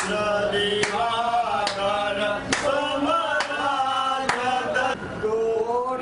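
Male voices chanting the aarti hymn to the goddess in unison, with a sharp percussive strike keeping an even beat a little more than once a second.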